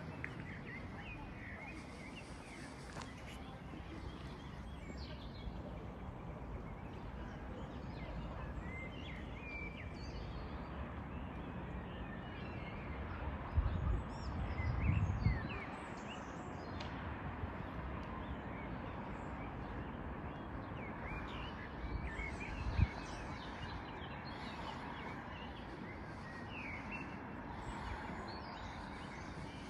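Small birds chirping repeatedly over a steady outdoor background hum. Low bumps come about halfway through, and a single sharp one follows later.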